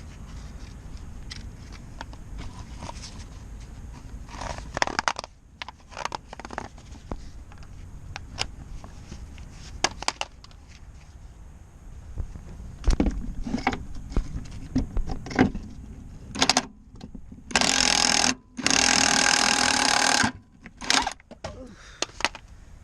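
Metal tool clinks and scrapes as a socket is fitted to a bolt. Then, near the end, a small TMG cordless impact wrench hammers twice, first for about a second and then for about a second and a half, backing out a 13 mm bolt.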